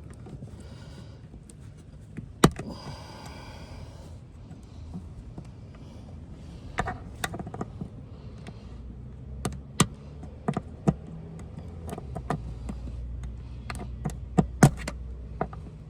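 Scattered sharp clicks and taps of pry tools working at plastic seat clips, with one sharp click about two and a half seconds in and the clicks coming more often from about six seconds on.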